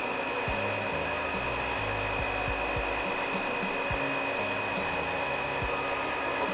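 Steady blowing, whooshing machine noise with a thin high whine running through it, unchanged throughout.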